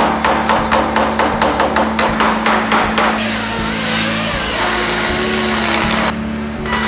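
Hammer-and-dolly work on a Porsche 964's steel body panel: quick, even metal-on-metal taps, about four a second, which stop about three seconds in. A steady hiss follows, over a background music bed with a held low tone.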